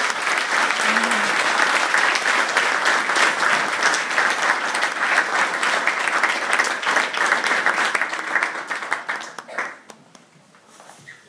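Audience applauding: dense, steady clapping that dies away about ten seconds in.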